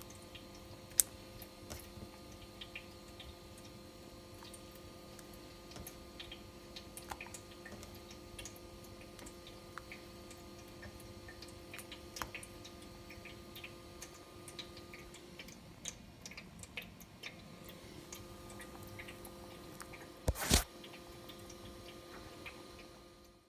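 Small irregular clicks and plops as cottage-cheese dumplings (lazy vareniki) are dropped one by one into a pan of hot water, over a steady low hum. About twenty seconds in there is a short, louder rush of noise.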